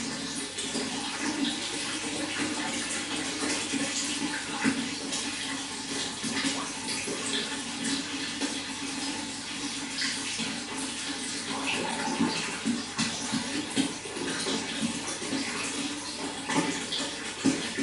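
Running water flowing and splashing steadily, with small irregular splashes and gurgles throughout.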